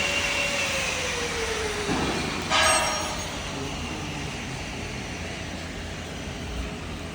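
Maize grinding machine (hammer mill) running with a steady din; its whine drops in pitch about a second or two in and fades, a short loud blare comes near the middle, then the machine noise carries on a little quieter.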